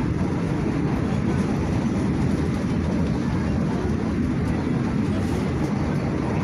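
Steady low rumble inside a moving KRL electric commuter train carriage: wheels running on the rails and the car's running noise at speed, even throughout.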